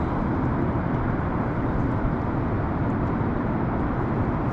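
Steady rumbling noise of a fishing boat under way, with no separate knocks or changes.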